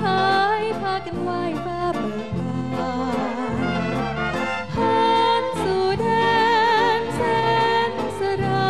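A woman singing a Thai song into a microphone with a band accompanying her; she holds long notes with a wide vibrato, loudest in the second half.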